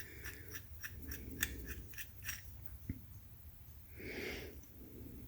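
Light, rapid clicking from hand work on the shift knob's threads, about four to five clicks a second, stopping after about two and a half seconds. It is followed by one more click and a breath about four seconds in.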